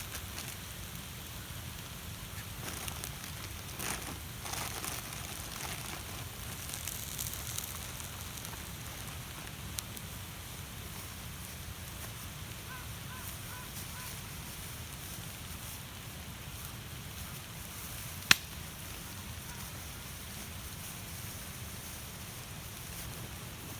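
Wood campfire burning with a steady low crackle and scattered small pops, and one sharp, loud pop about three-quarters of the way through.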